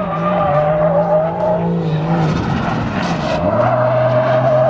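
Nissan Skyline R32 drift car sliding sideways with its engine held high and its tyres squealing. The revs dip about two seconds in, then hold steady at a lower note while the squeal carries on.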